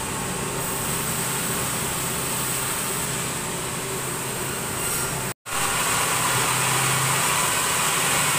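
Large band sawmill running with a steady mechanical hum and hiss. The sound cuts out completely for an instant about five seconds in, then comes back a little louder.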